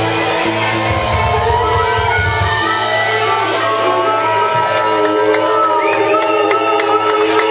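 A live rock band with electric guitars, bass and drums plays the close of a song. The bass and drums drop out about two and a half seconds in, leaving held guitar notes, with shouting and cheering from the crowd.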